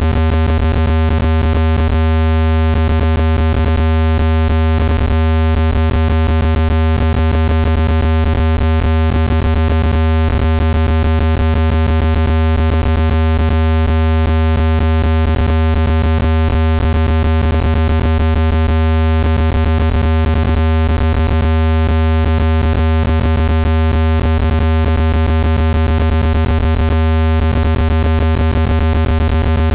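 Loud, steady, low-pitched synthesized tone with stacked overtones and a rapid flutter: a speaker-cleaning sound played to vibrate dust out of a phone or speaker grille.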